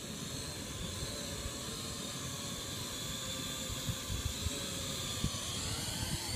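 Syma X8W quadcopter's motors and propellers whining steadily in flight, the pitch wavering slightly, over a steady hiss.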